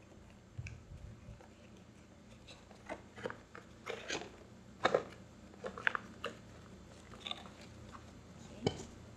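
Cardboard product box being handled and closed by hand: irregular taps, scrapes and rustles, the sharpest about halfway through and near the end.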